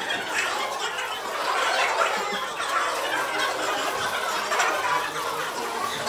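Hall chatter: many voices talking at once, with bits of laughter.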